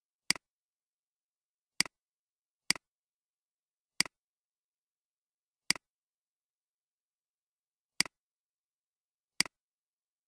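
Computer mouse clicks: seven sharp clicks at uneven intervals, each followed at once by a softer click, with dead silence between them.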